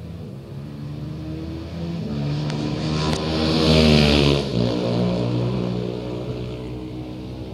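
Classic 500cc racing motorcycle passing at speed, its engine note growing louder and rising as it approaches, loudest about four seconds in, then dropping in pitch and fading as it goes away.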